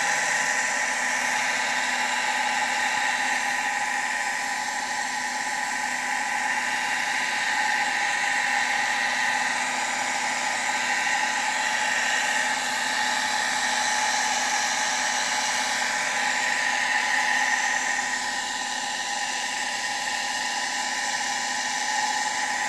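Shimizu electric water pump running steadily, a constant motor hum with a high whine and hiss.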